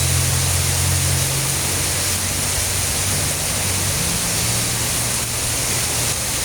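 Heavy rain falling steadily, a dense even hiss, with a low engine-like hum underneath that is strongest in about the first second and a half.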